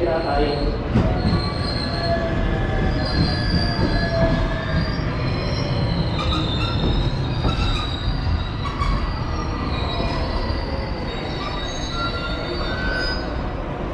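Electric commuter train moving along a station platform, its steel wheels squealing against the rails over a steady rumble, with several high thin squeal tones coming and going throughout.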